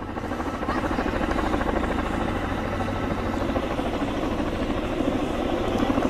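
Firefighting helicopter with a water bucket slung beneath it, its rotor chopping steadily in flight.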